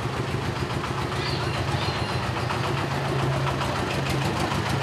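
Motor vehicle engine idling steadily amid street traffic, a low even hum.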